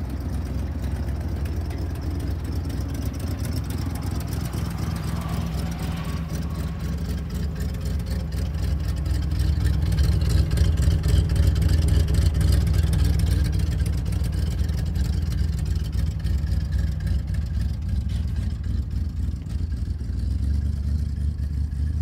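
Engine of a 1979 Chevy C70 tandem-axle grain truck idling steadily. It grows louder for a few seconds near the middle, when the exhaust tailpipe under the truck is close by.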